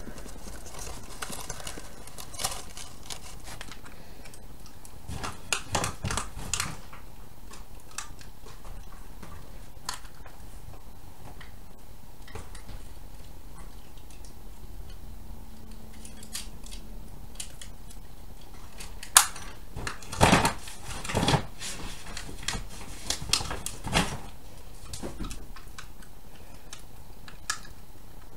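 Intermittent rustles and light taps of construction paper and a small glue bottle being handled as strip ends are glued down inside a woven paper basket. They come in two bunches, the sharpest a single tap a little past the middle, over a steady background hiss.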